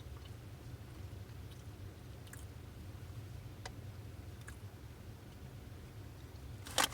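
A person chewing a mouthful of crispy fried chicken sandwich, with faint scattered mouth clicks, over a steady low hum. A brief loud sound comes just before the end.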